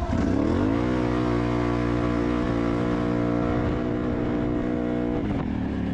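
Can-Am Renegade XMR 1000R ATV's V-twin engine revving up as it pulls away, holding a steady pitch under throttle for about four seconds, then dropping off near the end.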